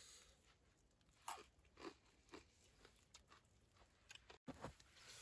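A person biting into and chewing a crunchy snack: a few faint crunches about half a second apart, then weaker chewing.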